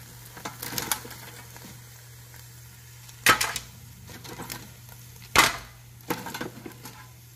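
Metal tongs clacking against an air fryer basket as chicken feet are lifted out and set down on a metal sheet pan: a handful of sharp clacks, the loudest about three and five and a half seconds in, over a faint low hum.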